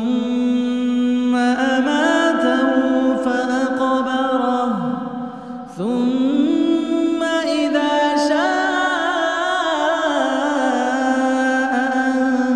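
A man chanting Quran recitation in the drawn-out, melodic tajweed style, holding long notes with ornamented turns. There are two long phrases, with a short break for breath about six seconds in.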